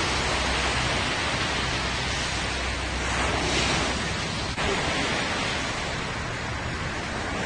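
Steady rushing noise of wind and sea, with wind buffeting the microphone; it swells a little midway.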